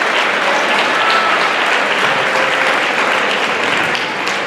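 Large audience clapping and applauding steadily, a dense continuous patter of many hands in a big room, with a few cheers mixed in.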